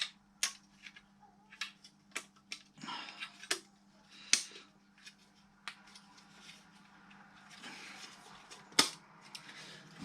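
Sharp clicks and taps of small plastic and metal parts being handled as the front panel is fitted into a car radio/CD unit's casing, the loudest about four and nine seconds in, with a faint steady hum underneath.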